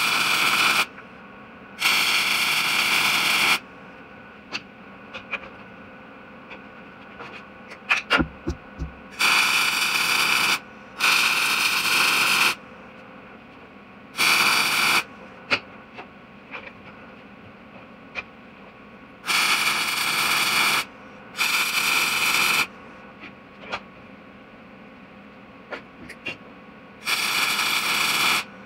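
MIG welding arc crackling in short runs of one to two seconds, about eight of them with pauses between, as a metal tube is stitch-welded.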